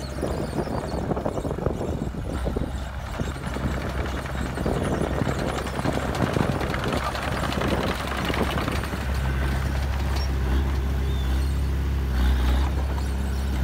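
Komatsu D20A crawler bulldozer's diesel engine running steadily under load as it pushes dirt, with rattling and clatter over it for the first several seconds. About nine seconds in, the engine's low hum grows louder and fuller.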